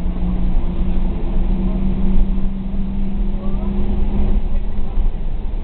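Diesel engine of a Karosa C934 bus heard from the rear of the passenger cabin, pulling under load with its pitch creeping up, then easing off about four and a half seconds in, over a steady low rumble.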